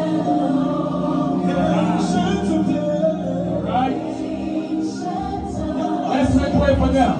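Music with several voices singing together, continuing throughout.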